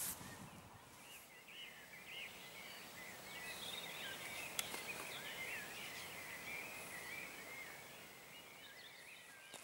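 Songbirds singing in quick, warbling phrases over a soft background hiss, with one sharp click about four and a half seconds in.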